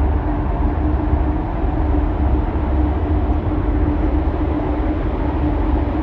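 Steady low engine rumble with a constant hum, running at an even speed with no change.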